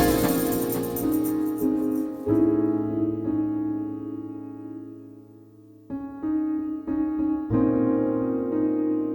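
Background music: slow piano chords, each struck and left to ring, with a brief fade almost to nothing near the middle before the next chords come in.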